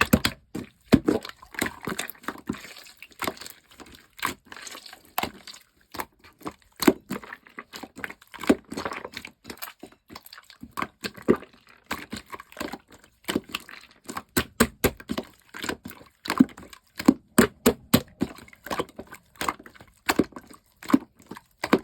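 Sky-blue clear slime squished and pressed by hand, giving a rapid, irregular run of sharp pops and clicks as air pockets burst.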